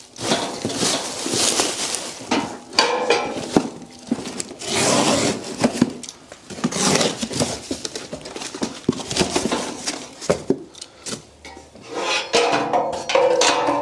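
Cardboard packaging and plastic wrap being pulled and torn off a new galvanised steel Land Rover rear crossmember: uneven rustling and crinkling in bursts, with light metallic clinks and knocks from the steel.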